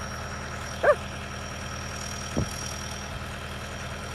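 Skid steer engine running steadily at idle. A short, sharp pitched sound cuts in about a second in, and a brief falling sound follows near the middle.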